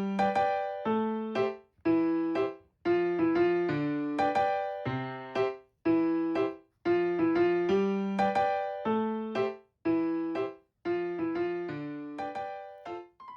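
Background music: a light electric-piano tune played in short phrases of struck notes that die away, with brief gaps between phrases.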